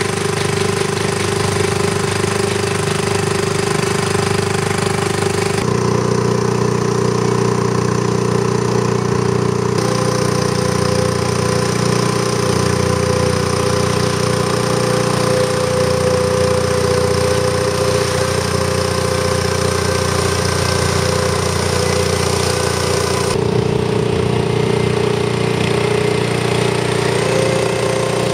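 Engines of Conver aquatic weed-cutting boats running steadily, their paddle wheels churning the water. The engine note changes abruptly three times.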